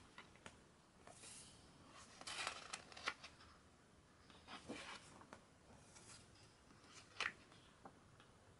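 Glossy pages of a hardcover photobook being turned by hand: several faint, short paper swishes and rustles, the loudest a few seconds in and again near the end.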